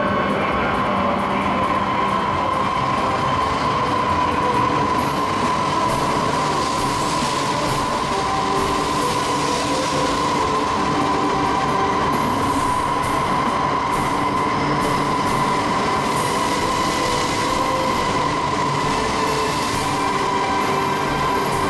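E4 series MAX double-decker Shinkansen pulling into a station platform and rolling slowly past, with a steady high-pitched whine over the running noise and short clicks from about five seconds in.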